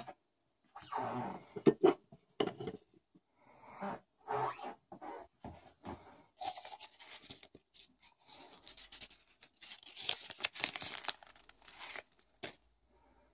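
Paper crinkling and rustling in bursts as a hand handles a folded banknote and a paper betting slip, loudest in the second half. Before that come a few duller, lower sounds of movement.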